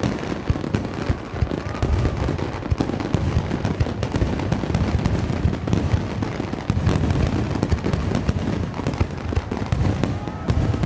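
Dense barrage of aerial firework shells bursting in quick succession, many overlapping booms and pops with no break, from a large starmine display.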